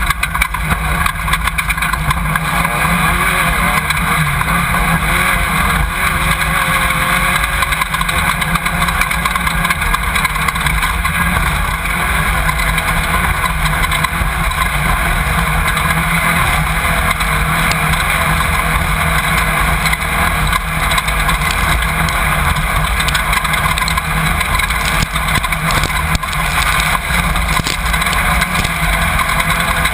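Off-road race car's engine running hard at speed, heard from inside the car, over constant rattling and frequent knocks from the rough course.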